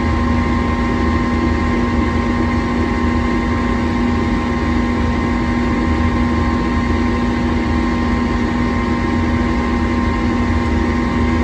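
Gas furnace's fan motor running with a steady hum, while the furnace fails to go on to light its burners; the fault was later traced to a clogged pressure switch hose.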